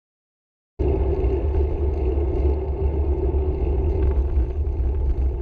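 Wind rumble on a handlebar-mounted camera's microphone, with road noise from riding. It starts abruptly about a second in and cuts off suddenly at the end.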